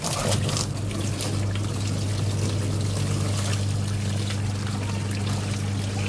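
Semi-automatic washing machine's wash motor running with a steady hum as the tub impeller spins, while water pours and splashes into the tub. The machine is being run with water in the tub to force the stuck impeller off its shaft.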